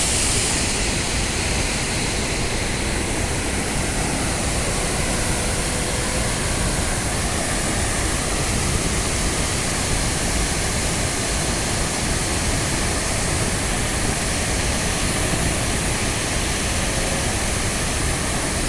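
Loud, steady rush of a waterfall, an even wash of falling water.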